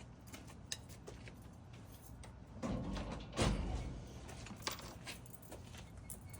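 Scattered light metallic clicks of tools being handled, with two heavier clunks about two and a half and three and a half seconds in.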